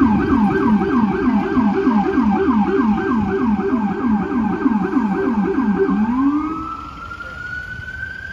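Electronic siren on an FDNY EMS battalion SUV sounding a fast yelp of about four falling sweeps a second, with a deeper tone pulsing in step beneath it. About six seconds in it switches to a slow rising wail and gets quieter as the vehicle pulls away.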